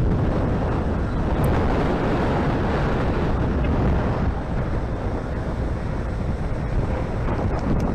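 Wind buffeting the microphone on a boat deck: a steady, unbroken noise heavy in the low end.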